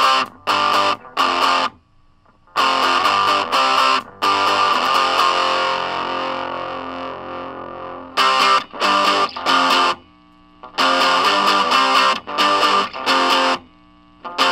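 Electric guitar played through a Monoprice mini overdrive/distortion pedal, a heavily distorted tone: short chopped chord stabs with gaps between them, one chord left to ring and die away over a few seconds midway, then more clipped stabs.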